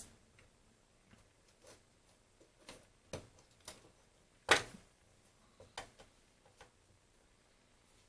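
Scattered small clicks and taps of hands handling the plastic parts of a B&O BeoCom 2 cordless phone, about a dozen in all, with one louder click about four and a half seconds in.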